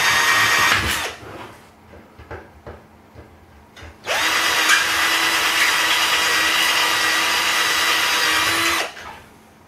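Power drill drilling out rivets in a steel PC case drive-bay frame: a steady whine that stops about a second in, then a longer run from about four seconds in that cuts off near nine seconds.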